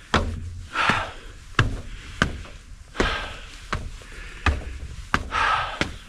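A hiker's footsteps climbing a steep rocky mountain trail: uneven knocks of boots on rock, about one a second, with breathy exhales between them.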